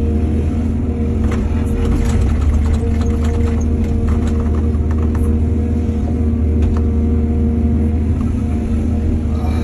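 Excavator's diesel engine running steadily under load, with a strong low hum. Scattered knocks and rattles come in the first half, then thin out.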